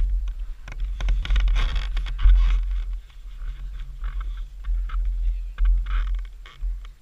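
Wind and handling noise on a camera being carried on foot: an uneven low buffeting rumble with frequent short rustles and scrapes. It quietens somewhat about three seconds in.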